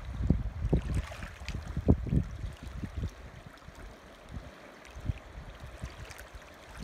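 River water flowing with a faint, even rushing, overlaid by gusts of wind buffeting the microphone in quick low rumbles that ease off about three seconds in.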